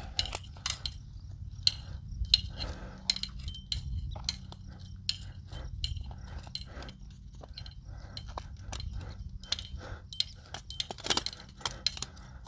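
Irregular metallic clicks and clinks of a hand-operated barbed wire stretcher being worked along its notched bar, tightening a strand of old barbed wire, over a steady low rumble.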